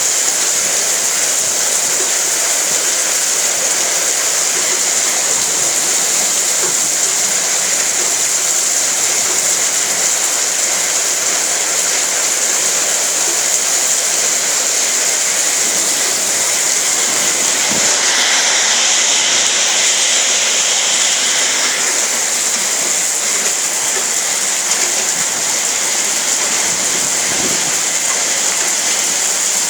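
Heavy rain pouring down in a steady, dense hiss, swelling for a few seconds a little past the middle.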